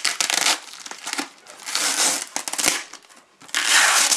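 Packing material crinkling and crumpling as a shipping box is opened and its contents handled, in three rustling bursts, the loudest near the end.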